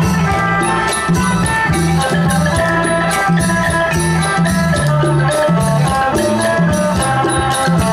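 Isan pong lang folk ensemble playing live: a repeating bass line and sustained melodic instruments over a steady percussion beat with shaker-like rattles.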